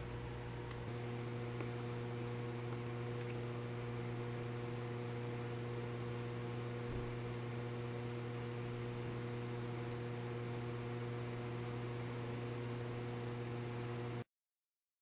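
Steady low electrical mains hum with a faint hiss. It cuts off suddenly to dead silence about a second before the end.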